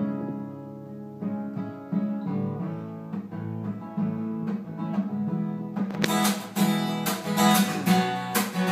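Steel-string acoustic guitar played solo: chords picked and left to ring, then about six seconds in it changes to steady rhythmic strumming.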